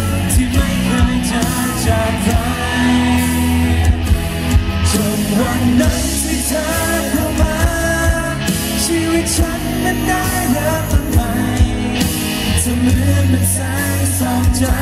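A man sings a pop song live into a handheld microphone over a full band backing with a steady drum beat, heard through the concert's loudspeakers.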